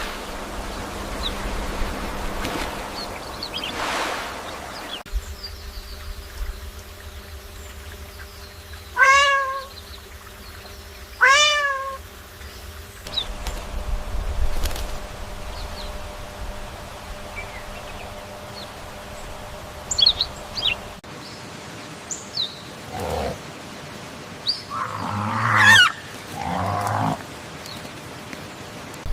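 Two short, pitched animal calls a couple of seconds apart, each rising and then falling, with scattered rustles and further calls later on.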